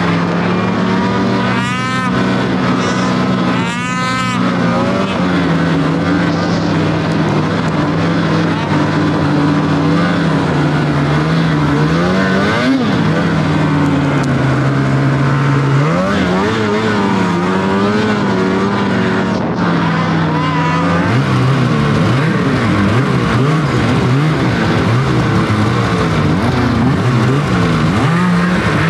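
Snowmobile engine running hard through deep powder, its pitch rising and falling with the throttle, with short sweeping glides in the first few seconds and quicker, more uneven revving in the last several seconds.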